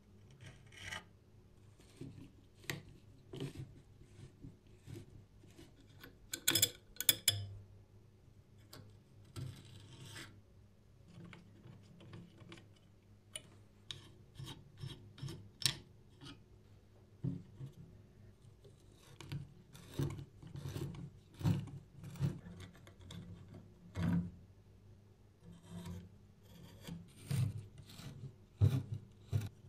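A screwdriver working the rusty screws and metal parts of an antique electric door bell: irregular small clicks, scrapes and rubs of metal on metal.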